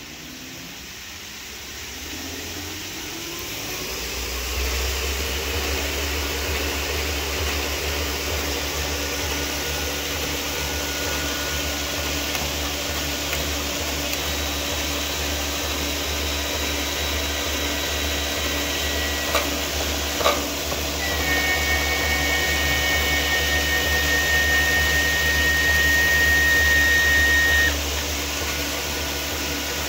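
Dog Trotter dog treadmill running, its motor and belt hum growing louder over the first few seconds as the speed is turned up, then holding steady. A couple of clicks come about two-thirds of the way in, then a high whine joins the hum and cuts off suddenly near the end.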